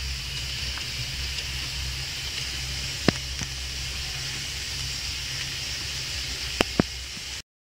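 Steady hiss with a low hum, the background noise of the recording, broken by a few sharp clicks of handling. The sound cuts off suddenly near the end.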